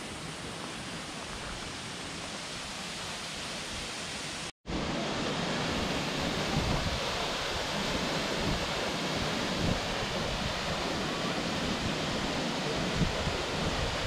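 Yōrō Falls, a waterfall, rushing steadily. The sound drops out for an instant about four and a half seconds in and comes back louder.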